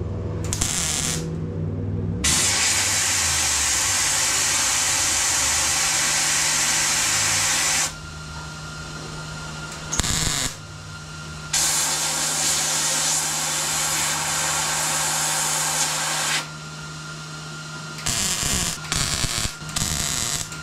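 Wire-feed (MIG) welder laying weld on a steel fender patch panel: two long runs of about five seconds each, with shorter bursts between them and a string of quick tacks near the end, over a steady low hum.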